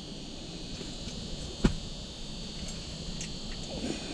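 Portable propane radiant heater hissing steadily and high-pitched, with one sharp knock about a second and a half in.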